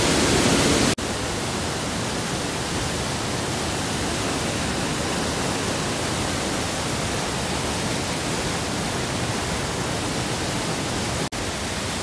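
Steady rushing of Bard Falls' cascade close by, a full even hiss of falling water. It cuts out for an instant about a second in and again near the end.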